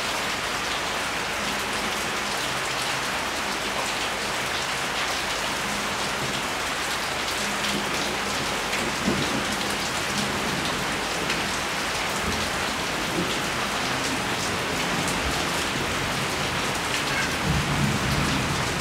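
Steady rain falling, an even hiss with a few sharper drop hits. Low rumbles of thunder come in about halfway through and again near the end.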